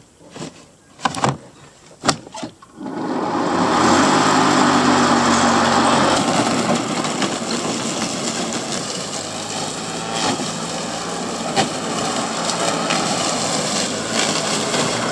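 A few sharp clicks as the rebuilt battery pack is seated in a Greenworks 40 V cordless electric lawn mower. About three seconds in the mower's electric motor and blade start up and run steadily as it mows, powered by the new 18650 cells.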